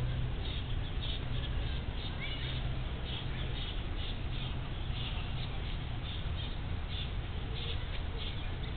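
Outdoor ambience: a steady low hum with faint, scattered high bird chirps throughout.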